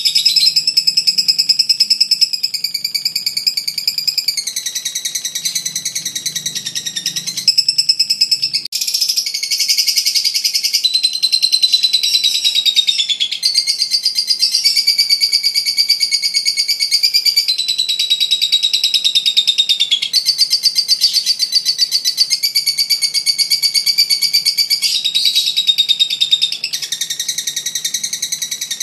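Masked lovebird singing a long ngekek: one unbroken chattering song of very rapid, high trills that shifts to a new note every second or two without pausing.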